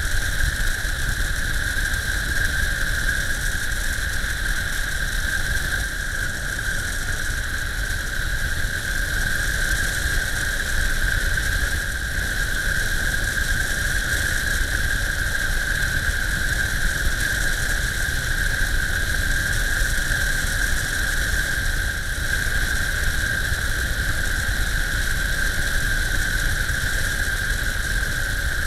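Cessna 152's four-cylinder Lycoming engine and propeller running steadily in flight, heard through a camera mounted outside the airframe, with wind rush. A steady high whine sits over a low rumble throughout as the aircraft descends to land.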